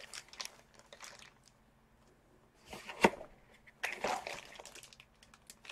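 Plastic packaging crinkling and rustling as a bagged laptop power adapter is handled and pulled from a cardboard box, with a single sharp tap about three seconds in.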